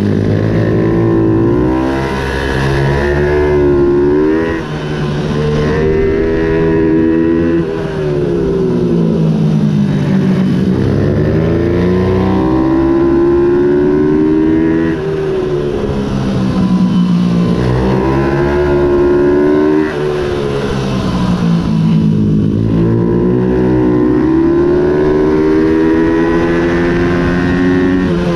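Ohvale 110 minibike's single-cylinder four-stroke engine heard on board at race pace, revving up through the gears with short dips at each upshift, then falling away as the throttle closes for corners, over and over.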